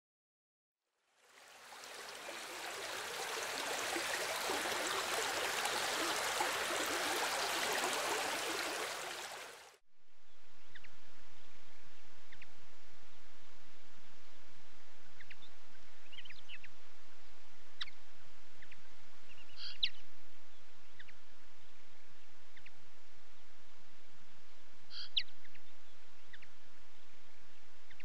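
A loud, even rushing noise swells in about a second in and cuts off about ten seconds in; then, against a quiet background, small songbirds at a seed feeder give a few scattered short, high chirps.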